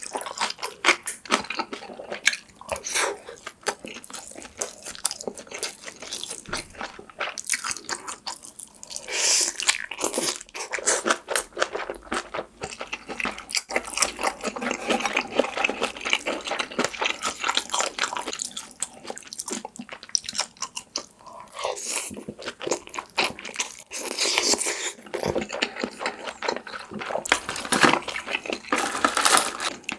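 Close-miked chewing of braised kimchi, Spam and rice: wet mouth sounds with repeated crunches and soft clicks, coming in clusters bite after bite.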